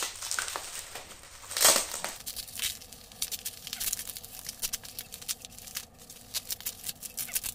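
Bubble-wrap plastic package crinkling and crackling as it is handled and picked open by hand, with one louder rip about a second and a half in.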